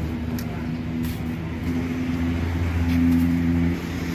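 An engine running steadily, growing louder about two seconds in and dropping off just before the end.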